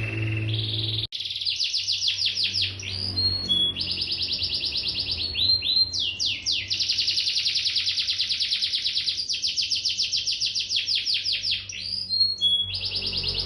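Domestic canary singing: long trills of fast repeated notes lasting a second or more, linked by short whistled notes, with a brief break about a second in.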